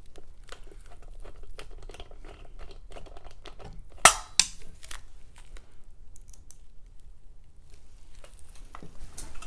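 Wires and connectors being pushed into a ceiling fan's wiring housing by hand: light rustling and small clicks and scrapes, with two sharp clacks about four seconds in.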